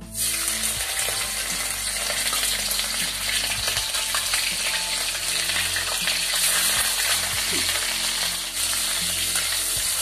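Fish frying in hot oil in a kadhai: the sizzling starts suddenly as the pieces go in and then runs on steadily while a spatula stirs them.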